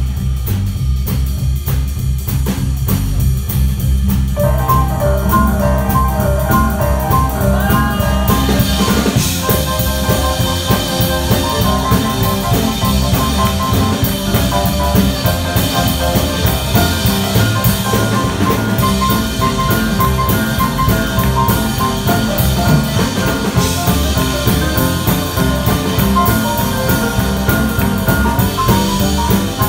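Live rock'n'roll instrumental: an upright double bass plays a repeating line, an upright piano comes in about four seconds in, and the drum kit with cymbals joins at about eight seconds, the band then playing on together.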